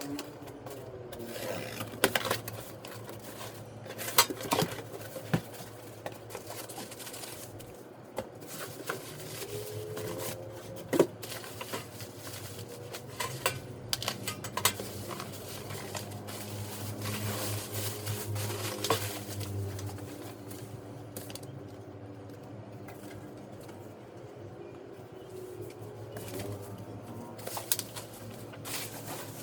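Unboxing handling noises: irregular clicks, taps and rustles of packaging and plastic parts being handled, with sharper knocks now and then over a low steady hum.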